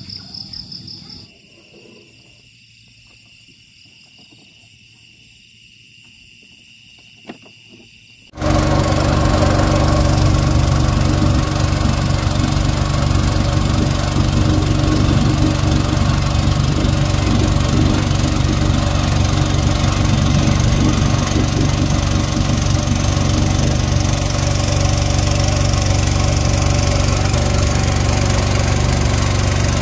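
Insects chirping with steady high tones, then about eight seconds in a small boat engine cuts in loud and runs steadily with a low drone to the end.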